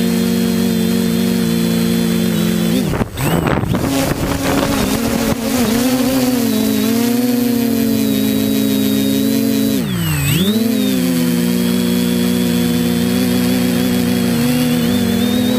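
Quadcopter's electric motors and propellers humming steadily, heard close up from the onboard camera. About three seconds in, the motor sound briefly drops and breaks up, a loss of motor power in Alt Hold mode. It then comes back at a higher pitch as the throttle is raised in Stabilize mode. Around ten seconds in the pitch dips once more and recovers.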